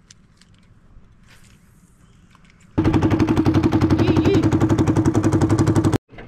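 Small gas boat motor running with a fast, even putter, starting abruptly about three seconds in and cutting off just before the end. Before it, only faint small taps.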